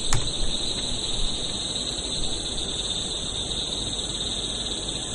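A steady chorus of night insects, a continuous high-pitched buzz that does not let up.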